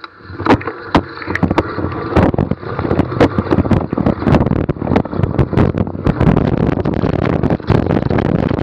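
NS Bikes mountain bike riding downhill over rough trail: wind on the microphone, with a dense run of sharp knocks and rattles from the bike over bumps. It builds up over the first two seconds and stays loud.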